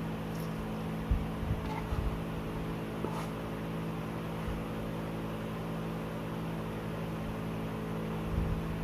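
A steady low mechanical hum, with a few soft knocks and chewing noises as spaghetti is eaten with a metal fork from a plate.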